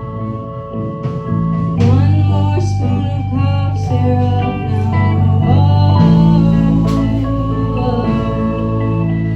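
A rock band playing live: sustained guitar chords, with the full band coming in louder about two seconds in.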